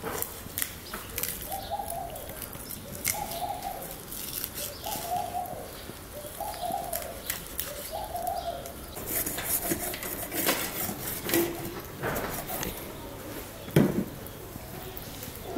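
A dove cooing: five short coos about every second and a half. After them come scattered light clicks and knocks, with one sharp knock near the end.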